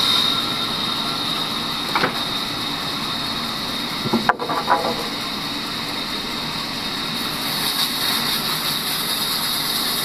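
Sawmill band saw running free between cuts: its electric motor and blade give a steady hum with a high whine over it.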